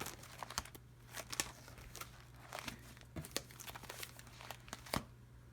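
Stencil sheets and binder pages being handled and leafed through: light crinkling and rustling with scattered small clicks.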